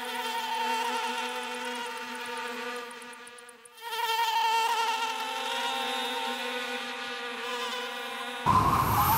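Buzzing of flying insects' wings, a steady pitched drone. It fades out about three and a half seconds in and comes back with a wavering pitch. Near the end a louder, fuller sound cuts in.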